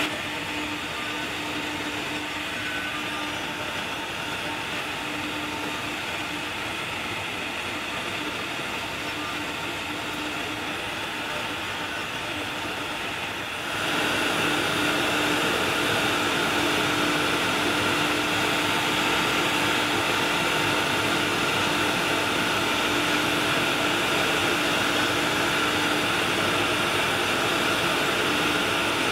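CNC router spindle running while a large-diameter bit mills away the top layer of a three-layer HDPE sign sheet, with the dust collection drawing air through the brush dust shoe. The result is a steady rushing noise over a steady hum, and it gets louder about 14 seconds in.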